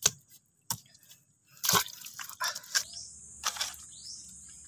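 A blade or stick jabbing into wet mud while digging out a mud crab burrow: a run of sharp, wet strikes and squelches, about one a second. About three seconds in, a steady high insect hum starts.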